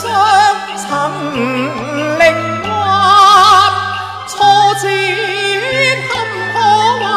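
A man singing Cantonese opera with a wide, wavering vibrato over instrumental accompaniment with held bass notes.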